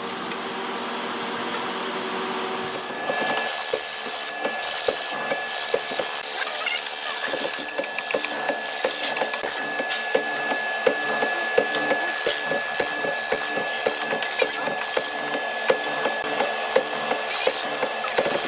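A tool working solid red hardwood. About three seconds in it settles into a run of short strokes, roughly two a second, over a steady high whine.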